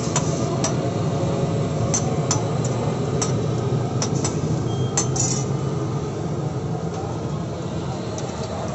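Metal spatula clinking and scraping on a flat steel griddle, a string of sharp clinks in the first half, then fewer, over a steady low rumble.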